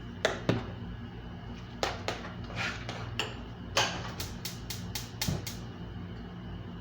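Kitchen clatter: sharp clicks and knocks of utensils against pots and dishes, including a quick run of taps about two-thirds of the way through.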